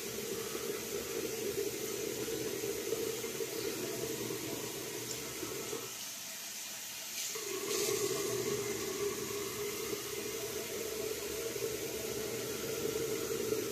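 Water running from a tap into a sink, a steady rush that drops away for about a second and a half some six seconds in, then comes back.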